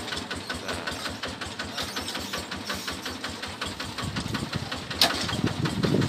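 Kubota 11.5 HP single-cylinder diesel engine of a small tracked combine harvester running at idle, a steady rapid chugging of about ten beats a second. A single sharp knock about five seconds in is the loudest sound.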